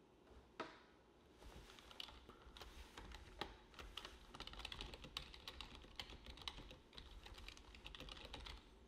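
Faint typing on a computer keyboard: a run of quick, irregular keystrokes as a question is typed in. A single sharper click comes about half a second in, before the typing starts.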